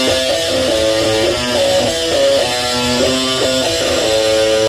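Electric guitar playing a melodic lead line of held notes that step from pitch to pitch every fraction of a second, with a steady low part underneath.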